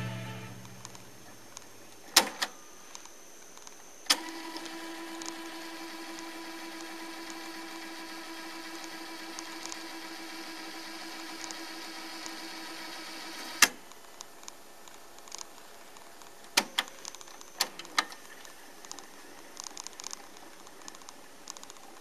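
Cassette deck transport: a key clicks, then a second click sets the tape rewinding with a steady motor whine for about ten seconds. It stops with a sharp clunk, followed by a few lighter mechanical clicks of the keys.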